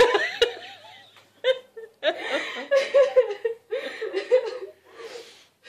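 Women's tearful, emotional laughter in short, high-pitched bursts, with a brief lull about a second in.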